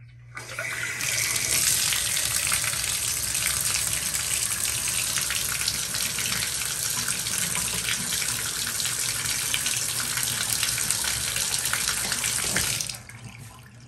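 A bathtub faucet runs, its stream splashing into the tub and running straight down a drain that is now clear and no longer holds water. The water comes on about half a second in and is shut off near the end.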